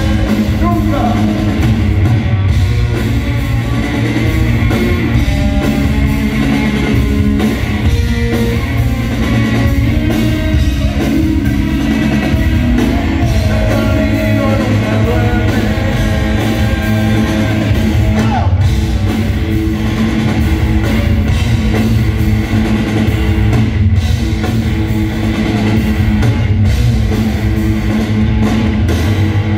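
Rock band playing live: drum kit, electric guitars and bass with a voice singing, heard loud from among the audience in a large arena.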